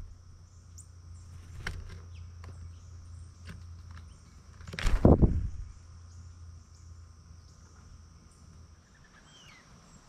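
Steady high-pitched drone of insects, with a loud brief rush of noise about five seconds in and a short bird call near the end.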